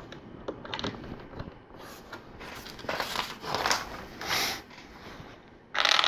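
Plastic LEGO bricks being handled and pressed together: scattered small clicks and scrapes, with a louder, brief clatter near the end.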